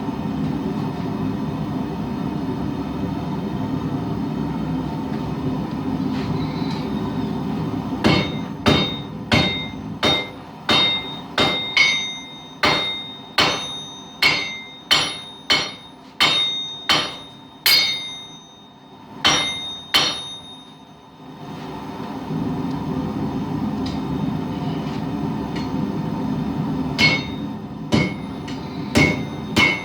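Hand hammer striking hot steel on an anvil, about two blows a second, each with a ringing metallic note, as a knife blade is forged to shape. A steady rushing noise fills the stretches between the runs of blows, and the hammering starts again near the end.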